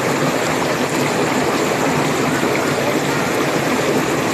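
Waterfall, its falling water making a steady, even rushing noise.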